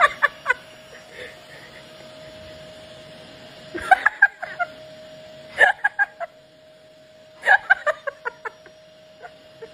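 Short bursts of laughter, each a quick run of fading 'ha-ha' syllables, coming three times about every two seconds over a faint steady tone.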